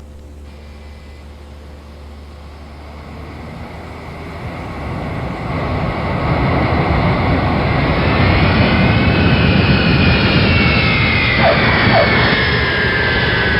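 Jet airliner engine sound: a roar that builds over a couple of seconds and then holds loud, with high whining tones that rise briefly and then slide slowly down in pitch, like a jet passing.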